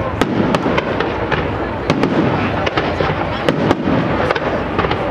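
Fireworks display: aerial shells bursting one after another, about three sharp bangs a second over a continuous rumble.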